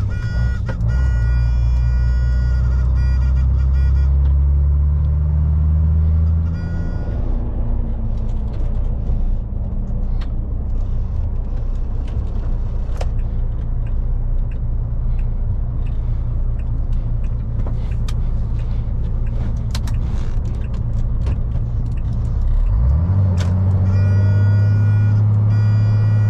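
MAN lorry's diesel engine pulling hard with a high whine and rising revs. It eases off about six seconds in into a rumbling, rattling cruise, then pulls hard again near the end.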